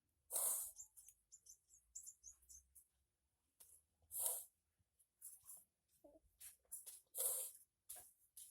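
A child's short pained whimpers and cries during a massage: three louder ones a few seconds apart, with small squeaks in between.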